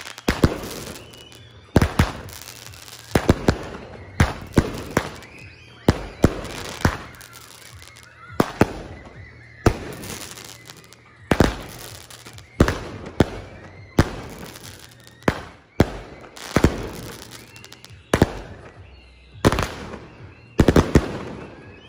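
Aerial fireworks going off in a long string of loud bangs, roughly one every second or so, some coming in quick doubles and triples, each followed by an echoing tail.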